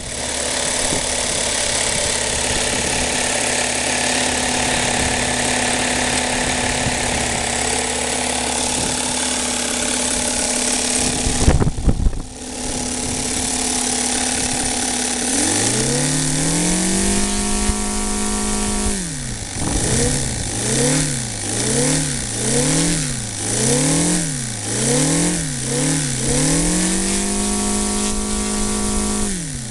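Evolution 7-cylinder 35 cc radial model engine, at the end of its break-in, running steadily at high speed with a loud rush of air. After a break, it revs up from low speed and holds, then is blipped up and down about once a second with crisp throttle response, then held at high revs again.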